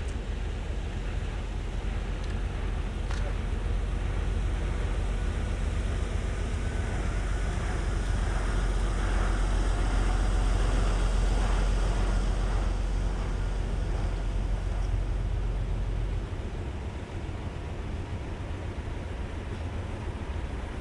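Heavy truck engine rumbling, growing louder toward the middle and then easing off about three-quarters of the way through.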